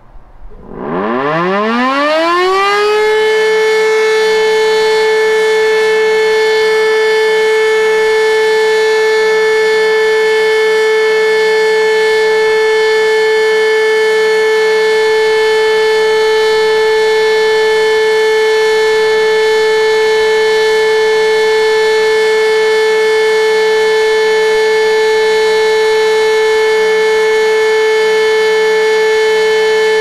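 E57 electric motor siren (400 V three-phase) starting up: its wail glides quickly upward for about two seconds, then holds one steady, loud tone without a break.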